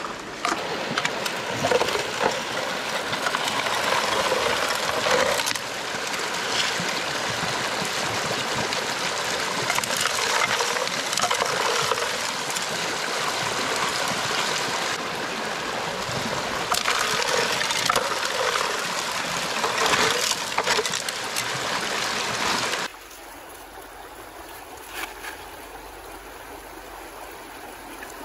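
Shallow rocky river running, a steady rush of water over stones. About three-quarters of the way through, it drops suddenly to a quieter, thinner stream sound.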